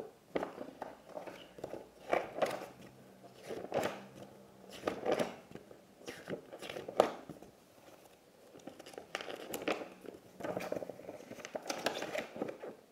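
Paper magazine pages being handled and turned, rustling in irregular bursts.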